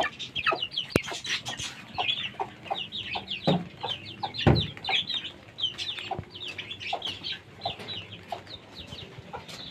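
Chicken chicks peeping over and over in short, high, falling calls, with chicken clucking. A few knocks come through, the loudest a heavy thump about four and a half seconds in.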